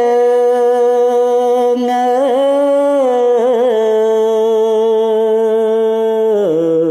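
A man chanting Khmer verse in kakagati metre in the lamenting pilap recitation style. He holds long drawn-out notes with brief wavering turns, then steps down in pitch near the end.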